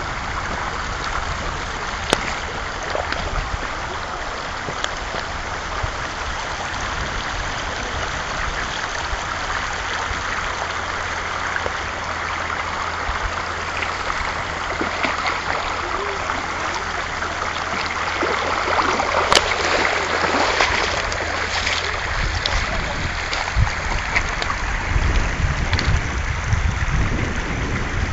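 Shallow river water running steadily over a stony bed, with uneven low rumbling on the microphone in the last few seconds.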